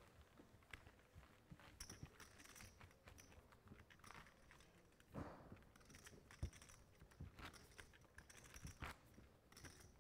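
Faint, scattered clicks of clay poker chips being handled and riffled at the table, with a few light ringing clinks.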